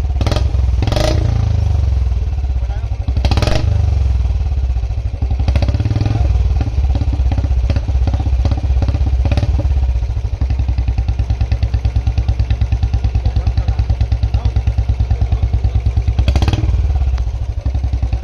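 2022 BS6 Royal Enfield Bullet 350's single-cylinder engine running through a long 'Punjab' aftermarket silencer with the catalytic converter still fitted. There are a few short, sharp bursts in the first few seconds and one more near the end, and from about halfway it settles into a steady, even idle thump. The silencer is firing properly, a little louder since it was tightened; the speaker thinks it leaked during the earlier test.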